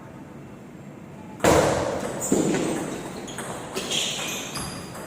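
Table tennis ball being struck and bouncing in play. About a second and a half in, a sudden loud burst fades over the next second, followed by several sharper knocks.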